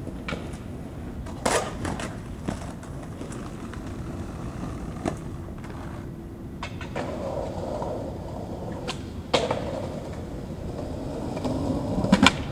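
Skateboard on concrete: a few sharp clacks of the board, then from about seven seconds in the wheels rolling, growing louder as the skater approaches. Near the end comes a quick cluster of clacks as the tail pops.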